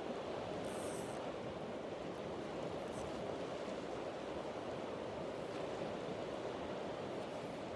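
River water rushing steadily, an even unbroken roar of flowing current.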